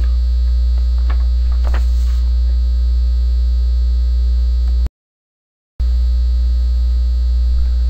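Loud, steady low electrical mains hum with a faint buzz above it. The hum cuts out to complete silence for just under a second about five seconds in, then returns unchanged.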